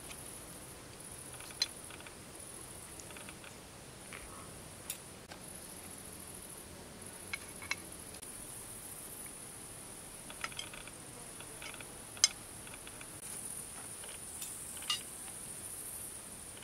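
Insects chirring in a steady high-pitched band that swells and fades, with scattered sharp clicks of a spoon and fork against a plate, the loudest about twelve seconds in.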